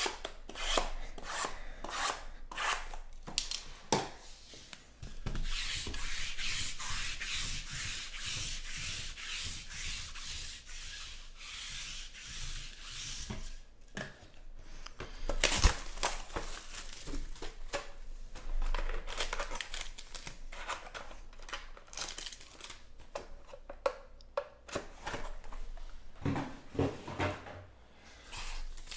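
Sealed cardboard trading-card boxes being handled and opened: cardboard and wrapping rubbing and scraping, with a long stretch of steady scraping early on and many small knocks and clicks as the boxes are moved and set down. The loudest is a single knock about halfway through.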